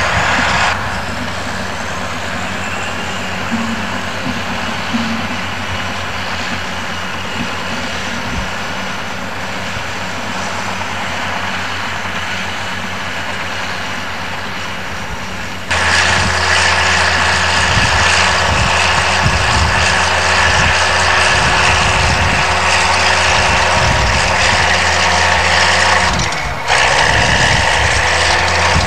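Diesel engine of a crawler bulldozer running steadily while it works. The sound drops in level about a second in, grows louder again about halfway through, and dips briefly near the end.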